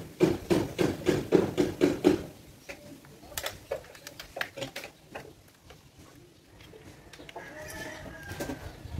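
A rapid, regular series of loud pulses, about three a second, for the first two seconds, then scattered light clicks and clinks as a steel mounting bracket is handled against a small solar panel's frame.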